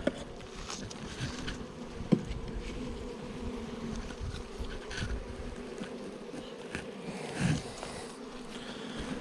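Honeybees buzzing steadily around an opened hive, with a few short knocks from hive equipment being handled; the sharpest knock comes about two seconds in.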